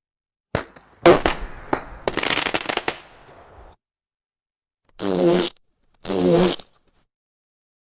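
Fart sound effects. About half a second in, a long sputtering fart starts with several sharp pops and trails off over about three seconds. After a pause come two short, buzzy farts of steady pitch, about a second apart.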